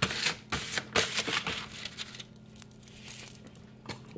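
A sheet of paper liner crinkling as a hand smooths and presses it flat on a metal pizza tray: several quick rustles in the first second and a half, then fainter ones.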